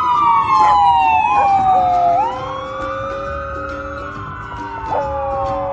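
An emergency-vehicle siren wailing, its pitch sliding slowly down and back up, with a corgi howling along to it.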